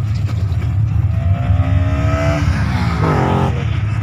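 A car engine accelerating hard, its pitch climbing steadily and then dropping quickly about two and a half seconds in, over a steady low rumble of other engines.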